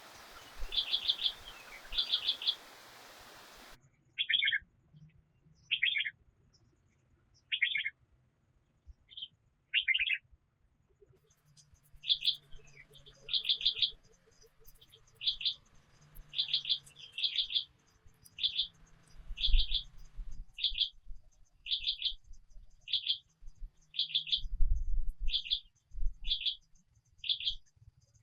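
A bird calling over and over: short, high clusters of quick chirps, roughly one every second, with brief gaps between them. A faint steady hiss underneath stops suddenly about four seconds in.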